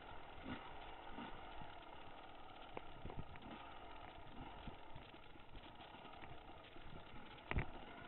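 Dirt bike engine running along a trail, with scattered knocks and rattles from the bike jolting over the rough ground and one louder thump about seven and a half seconds in.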